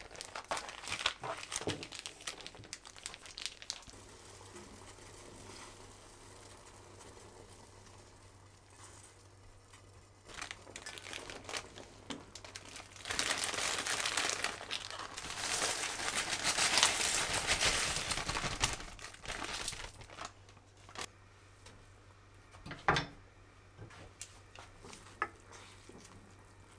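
Plastic or paper packaging crinkling and rustling as it is handled, with a longer, denser stretch of rustling in the middle and a few sharp clicks and knocks.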